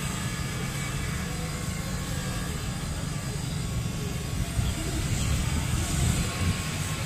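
Diesel locomotive engine running with a steady low rumble, swelling a little past the middle.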